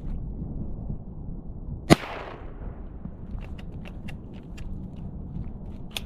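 A single shotgun shot about two seconds in, sharp and loud, with a short echo fading after it, over a steady low rumble of wind.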